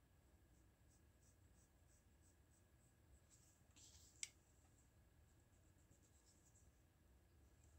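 Faint scratching of a 2H graphite pencil drawing short strokes on paper, a few a second. About four seconds in there is a brief louder scratch and then one sharp click as the pencils are handled.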